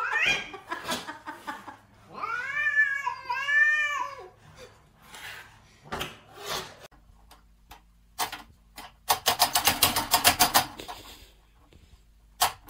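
A cat meowing: a short rising call, then two long, drawn-out yowls that rise and fall in pitch. Later comes a quick run of sharp clicks or taps.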